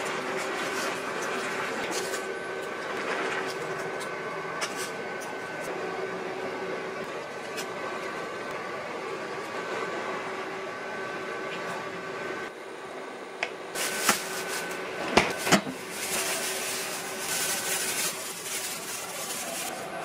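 Steady mechanical hum with a few thin whining tones, under the stirring of food in a pot. A handful of sharp knocks of a wooden spatula against the pot come about two-thirds of the way in.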